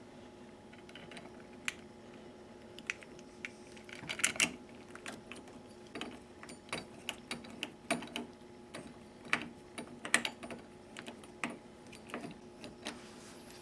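Irregular light metal clicks and taps as door knob handle parts are fitted together and a small screw is turned in with a Phillips screwdriver.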